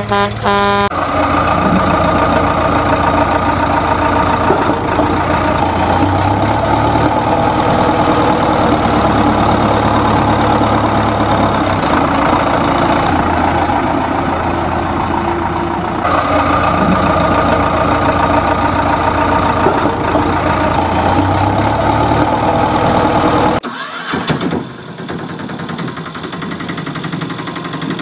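Recorded engine sound effect running steadily, likely a loop, since the same pattern comes round again about halfway through. It drops to a quieter, lighter engine sound near the end.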